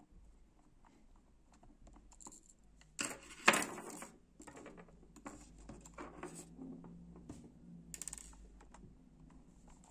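Small plastic clicks and rattles of a Logitech G300s mouse's shell being handled and turned over as it is taken apart, with a sharp cluster of clicks about three and a half seconds in and another around eight seconds.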